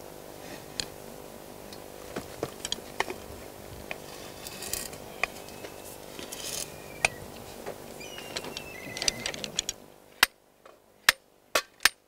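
Steel parts of a dynamic cone penetrometer clinking and scraping as the drive rod is worked loose and lifted from the soil by hand. From about ten seconds in, a run of sharp metal knocks, the sliding hammer struck up against the handle to pull the rod out.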